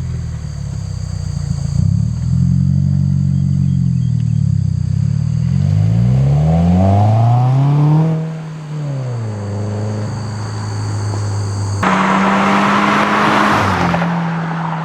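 Subaru WRX's turbocharged flat-four with an aftermarket exhaust, revved slowly up to a peak and dropped quickly back to idle. About twelve seconds in it changes to a louder steady run with a strong hiss over it.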